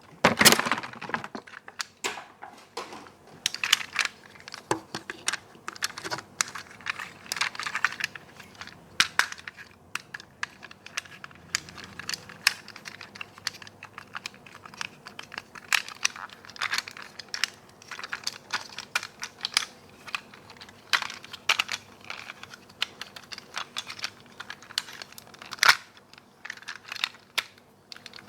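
Hands opening and handling toy packaging: crinkling plastic and cardboard with many irregular small clicks and taps.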